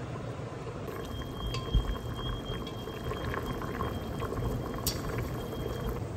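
Pot of braised pork belly bubbling at a simmer, with many small crackling pops and a faint steady high whine under it. A low thump comes about two seconds in and a sharp click near five seconds.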